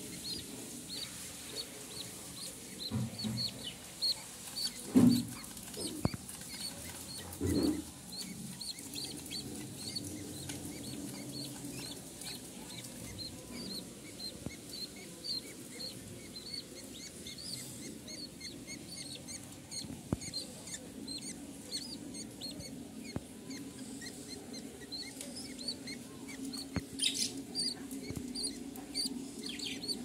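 Budgerigar chicks peeping, a steady run of short high chirps several times a second, with a few louder low bumps in the first eight seconds.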